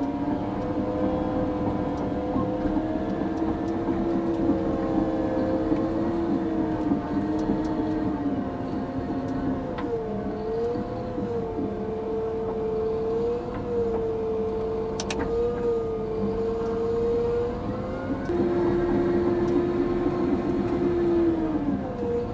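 CAT D6 bulldozer running under load while pushing and turning, with a steady engine note and a whine that wavers up and down in pitch. A second, lower whine drops out about halfway through and returns near the end.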